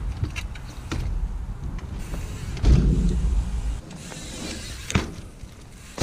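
Trials mountain bike being ridden through a move: rumbling tyre and wind noise, a louder rough scrub just under three seconds in, and sharp knocks of tyre or frame impacts at about one second, about five seconds and at the end.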